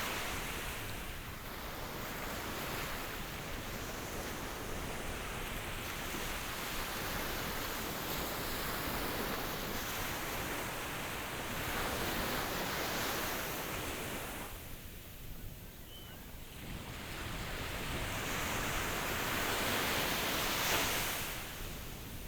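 Ocean waves surging and washing in, a steady rush that swells and eases every several seconds, with a quieter lull about two-thirds through.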